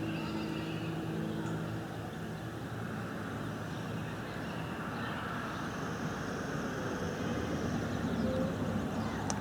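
A motor vehicle running, its steady low hum clearest in the first couple of seconds and the overall noise rising slightly near the end, with a few short faint chirps.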